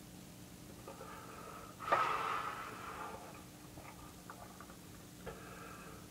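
A man's short, sharp snort through the nose about two seconds in, tailing off over about a second, followed by a few faint clicks.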